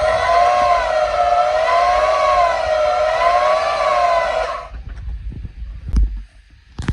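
Bauer 10-amp handheld variable-speed band saw running free at its slow speed setting, giving a steady motor whine that wavers slightly in pitch, then shutting off about four and a half seconds in. A single low knock follows near the end.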